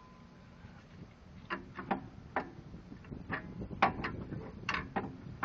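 Clicks and knocks from handling an old brake pad and a clamp at a car's rear brake caliper. About nine short, sharp knocks come at uneven intervals, starting about a second and a half in.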